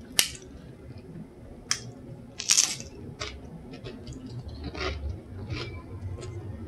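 Tortilla chips with nacho toppings crunching as they are broken and eaten: a run of separate short, sharp crackles, the longest about two and a half seconds in.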